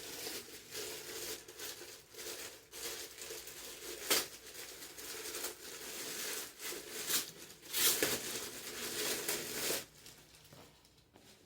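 Packaging crinkling and rustling as it is handled and pulled open, with a couple of sharper knocks, dying down near the end.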